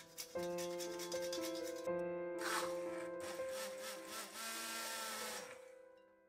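Quick scraping strokes of a tonka bean on a fine metal grater for the first two seconds. Then a hand-held immersion blender runs in a saucepan of cooked apple pieces for about three seconds and fades away before the end. Soft background music plays throughout.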